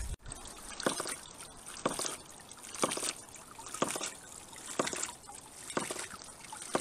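Homemade hydraulic ram pump running on spring overflow: its waste check valve snaps shut about once a second, each stroke with a spill of water, over a steady trickle.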